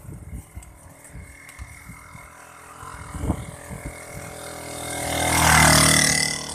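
A small motorcycle overtakes, its engine growing louder for a couple of seconds, loudest about five and a half seconds in, then fading as it pulls ahead. Before it, low irregular thumps.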